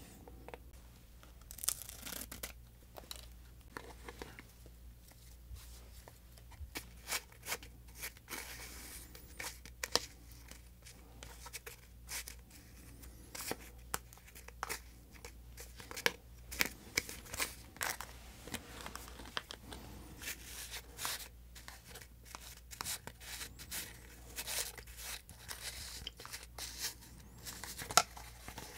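Rustling and tearing of the small paper-and-plastic packets of a Popin' Cookin' hamburger candy kit, with many short sharp clicks and scrapes of small plastic pieces being handled and stirred.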